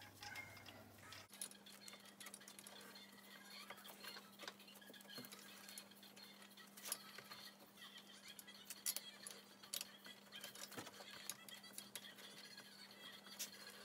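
Near silence with faint scattered clicks and light ticks as gloved hands thread the carburetor's mounting bolts onto the intake manifold by hand. A faint steady hum comes in about a second in.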